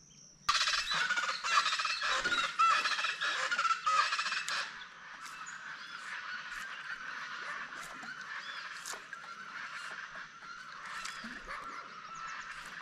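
Geese honking: many overlapping calls start suddenly about half a second in, loud for about four seconds, then carry on more faintly.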